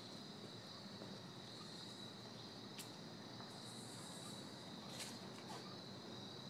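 Faint, steady, high-pitched chorus of insects in summer woodland, with two brief clicks about three and five seconds in.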